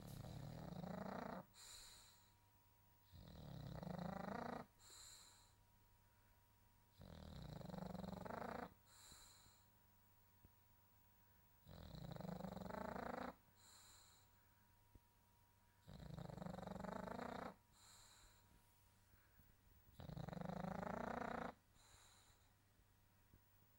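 A pet snoring in its sleep: a long snore about every four seconds, each followed by a shorter, fainter breath with a thin high note in it.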